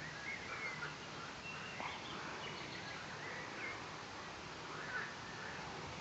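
Birds chirping and calling in short, scattered notes over a faint hiss, with the low buzz of honey bees foraging on the flowers coming and going.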